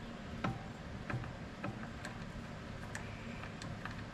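Scattered light metallic clicks and taps, irregular and unevenly spaced, as the steel chase holding the lead type is handled and clamped down in the bed of a Prinserv hand-fed platen press.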